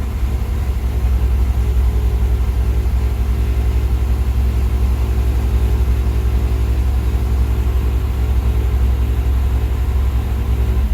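Mazda RX-7 FC's 13B twin-rotor rotary engine idling steadily with a rough, uneven cold-start idle, after sitting unrun for over a decade.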